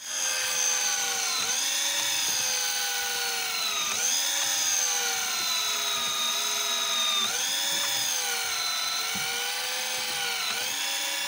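Daiwa Tanacom 1000 electric reel motor whining as it winds line up from a deep drop. Its pitch dips sharply and climbs back about every three seconds.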